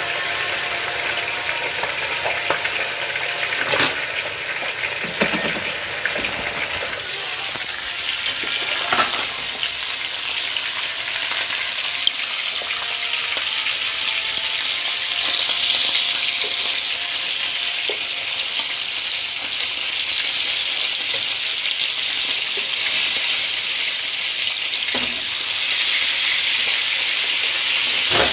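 Whole fish sizzling as they fry in oil in a pan: a steady hiss that gets louder about seven seconds in, with a few scattered knocks.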